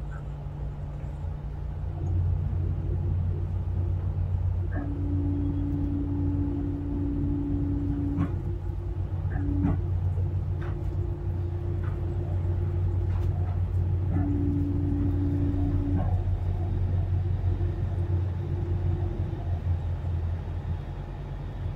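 Tugboat's diesel engines running under tow, a steady low rumble that grows louder about two seconds in. A steadier, higher hum comes and goes several times over it.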